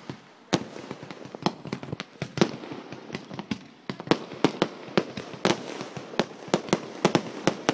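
Fireworks going off in quick, irregular succession: many sharp bangs and pops, several a second, over a crackling hiss. A short lull comes just after the start.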